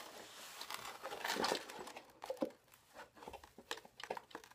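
A measuring spoon scooping borax powder inside a cardboard box: gritty scraping and rustling of the powder and box, followed by scattered light taps and clicks.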